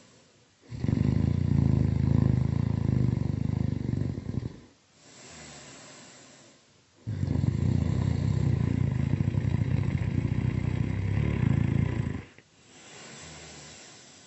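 Loud, rattling snoring: two long snores of about four seconds each, with a quieter breath between them and another near the end.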